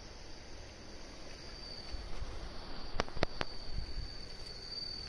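Insect trilling steadily at one high pitch, faint. Three sharp clicks come close together about three seconds in.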